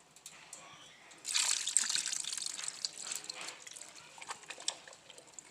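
Home-canned vegetable soup being poured from a jar into a soup pot, a splashing pour that starts about a second in and trickles off, followed by a few small clinks and drips.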